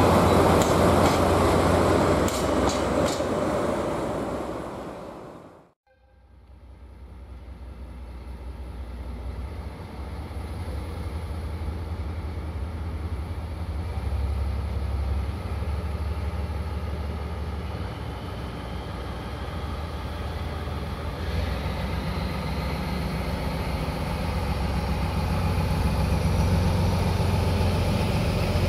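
A loud train sound fades out over the first few seconds. Then a diesel locomotive hauling a Maya track-inspection car draws slowly nearer, its engine a low steady drone that grows gradually louder, with a faint rising whine partway through.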